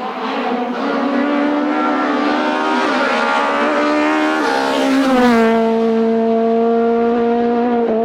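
Hillclimb race car engine accelerating hard through the gears. The revs climb and drop back at quick upshifts about three, four and a half and five seconds in. It is loudest as it passes just after the last shift, then holds a steady engine note.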